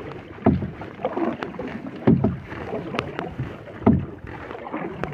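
Paddle strokes in the water from a small paddled boat, a swish about every second and a half to two seconds, with a few light knocks between them.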